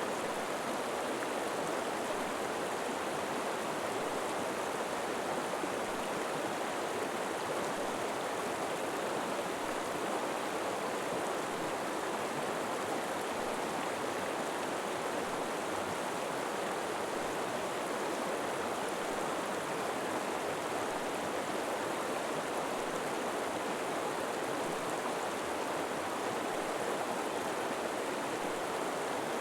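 River water flowing and rushing steadily, with no change in level.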